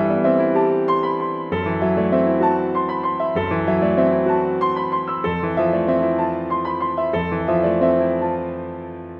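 Background piano music: slow, gentle chords changing about every two seconds, fading out near the end.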